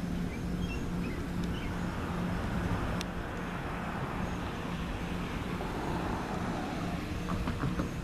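Steady low rumble and hum of a vehicle engine running, with wind on the microphone. Faint chirps of small birds sound in the background.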